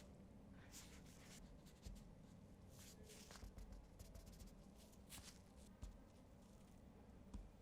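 Faint rustles and light clicks of a tablet's packaging being handled, scattered irregularly, with a steady low room hum beneath.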